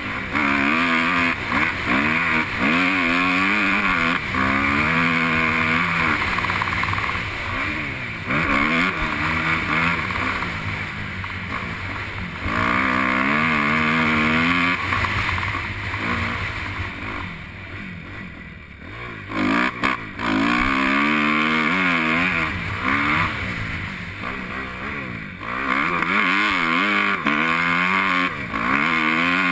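Motocross bike engine revving hard, its pitch climbing through each gear and dropping at the shifts, over and over. The engine eases off for a couple of seconds a little past halfway, then pulls hard again.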